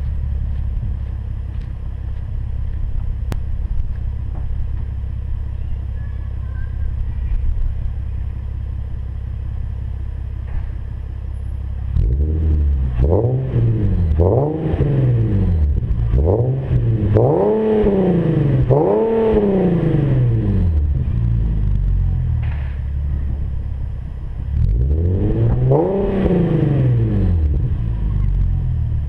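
Nissan 370Z's 3.7-litre V6 running through Z1 high-flow catalytic converters and an Invidia Gemini exhaust. It idles steadily, is revved in a quick series of about five blips, settles back to idle, and is revved once more near the end.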